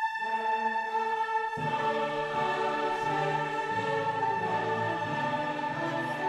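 Background music in an orchestral, choral style, with long held notes; a deeper part comes in about a second and a half in.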